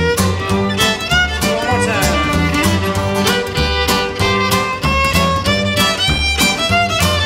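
Live acoustic string band: fiddle playing the melody, with upright bass plucked on the beat and acoustic guitar strumming the rhythm. The fiddle slides between notes about two seconds in.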